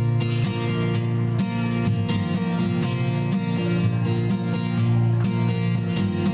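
Acoustic guitar strummed in a steady rhythm, its chords ringing on: the instrumental intro before the first sung verse.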